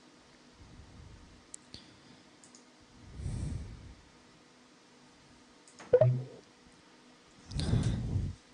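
Breath puffing onto a close microphone, once about three seconds in and louder near the end, with a few faint clicks and a sharp mouth click with a short low hum about six seconds in.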